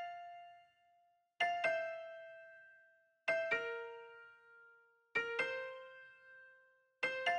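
Background music: slow piano-like keyboard notes, struck in pairs about every two seconds, each ringing out and fading before the next.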